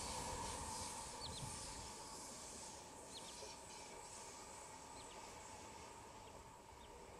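Passenger train running across a long bridge in the distance, its steady rumble and hum fading away over the first few seconds into a quiet open-air background. A few short high chirps come through near the middle.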